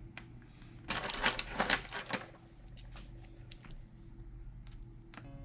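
Small pry tool clicking and scraping against an iPhone's internals as the battery connector is unplugged, with a dense cluster of sharp clicks about a second in and scattered single clicks, over a low steady hum.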